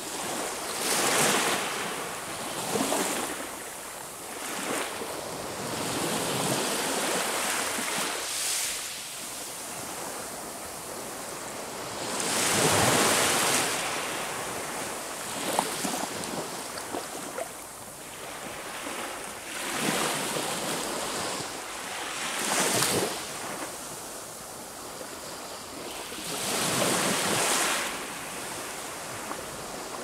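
Sea waves breaking on the shore: a surge of surf every few seconds, the largest about halfway through, with a steady wash between the breaks.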